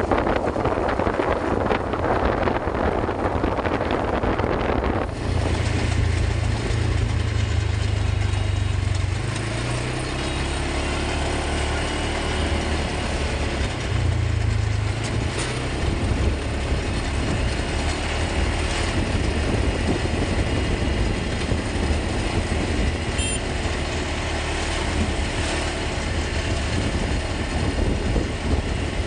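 ATV engine running steadily during a ride, a continuous low rumble. For the first five seconds a rushing noise lies over it, then stops suddenly.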